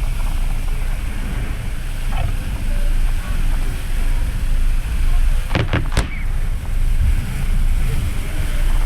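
Two sharp firework bangs about half a second apart, a little past the middle. They sound over a steady low rumble of wind on the microphone and water noise from a moving boat.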